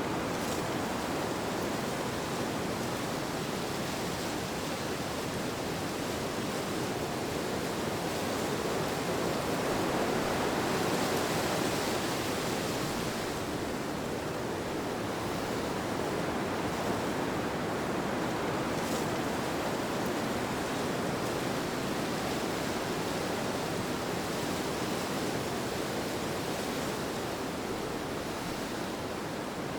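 Steady rushing wind that swells a little around ten to twelve seconds in.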